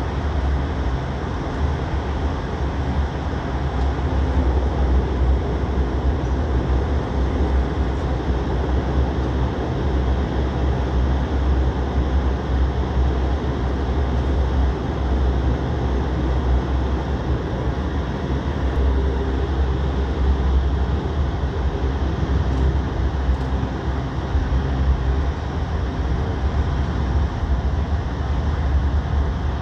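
Steady cabin noise of an airliner taxiing on the ground: a deep, continuous rumble from the engines at low power and the wheels rolling over the taxiway, with a fainter hum over it.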